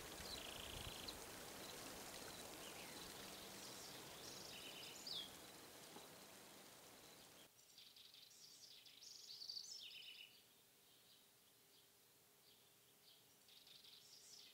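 Faint nature ambience: small birds chirping in short, high phrases over a soft, even hiss. The hiss drops away about halfway through, leaving the chirps over near quiet.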